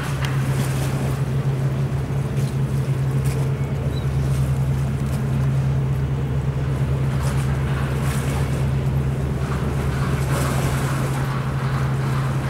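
A steady low engine hum, holding one pitch without change, under wind and water noise.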